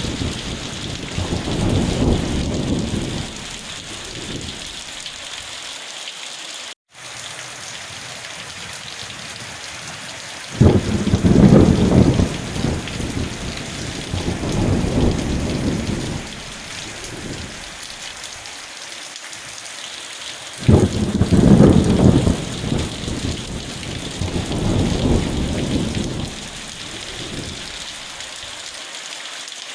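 Steady hiss of heavy rain with rolls of thunder. One roll dies away in the first few seconds, and two more break in sharply about ten and twenty seconds in, each rumbling and fading over about five seconds. The sound cuts out completely for an instant about seven seconds in.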